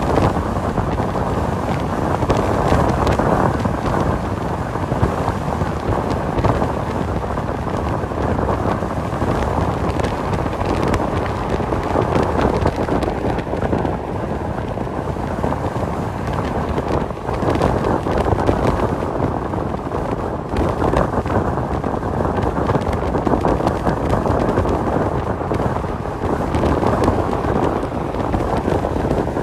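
Steady road and engine rumble heard inside a truck cab cruising at highway speed, a dull, even noise with no distinct tones.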